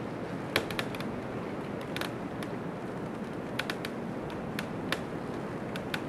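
Snowstorm ambience in a snowy forest: a steady rush of wind, with scattered sharp clicks and creaks at irregular intervals.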